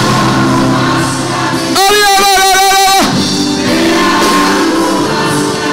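Gospel worship music: held chords with a singer's voice. About two seconds in, the singer holds one long note with a strong, even vibrato for about a second.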